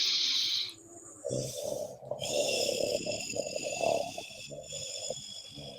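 A breath hissing out for about a second, then a long, rough, guttural 'whooo' breathed from the throat for about four seconds and fading: the loud spleen healing sound of the qi gong six healing sounds.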